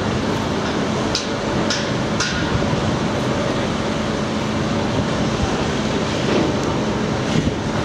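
Diesel-hauled container freight train approaching: a steady locomotive engine hum over a constant rumble, with a few short sharp clicks in the first couple of seconds.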